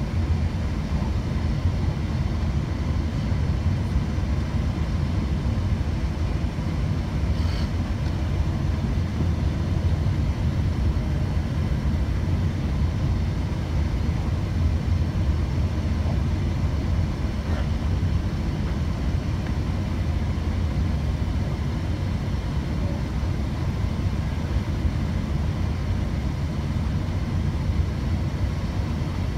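Steady low rumble of Airbus A380-800 cabin noise at a window seat during the approach to landing: engine and airflow noise that holds an even level throughout.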